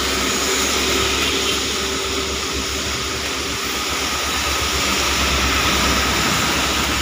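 Mercedes-Benz OH1626 coach's diesel engine running close by as the bus moves slowly, a steady low throb under an even hiss of falling rain.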